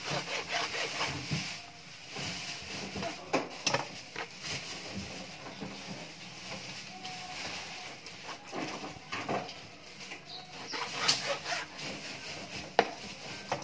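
Chef's knife slicing a raw chicken breast on a plastic cutting board, with irregular knocks of the blade against the board.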